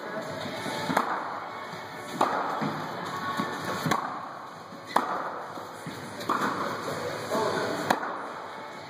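Tennis rackets striking balls, a sharp pock every one to three seconds, five in all, over background music.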